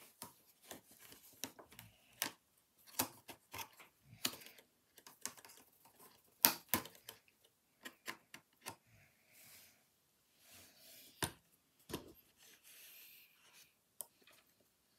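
Irregular clicks, taps and rustles of handling right against the microphone, the sharpest click about six and a half seconds in, with softer rustling near the end.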